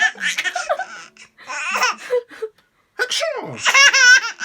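A five-month-old baby laughing loudly in bursts, set off by her father's sneezes. One sneeze comes about three seconds in as a sharp falling sound, and the baby's wobbling laugh follows straight after.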